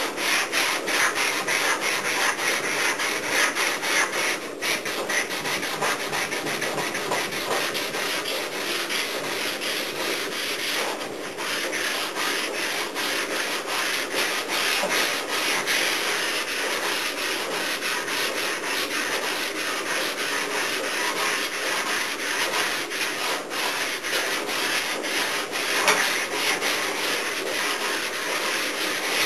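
Hand sanding on a car body panel: sandpaper scraping in rapid back-and-forth strokes, pausing briefly twice.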